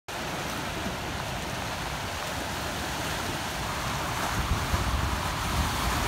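Fast, high river water rushing and churning over rocks below a dam's open flood gates, a steady whitewater rush. Wind rumbles on the microphone, building in the second half.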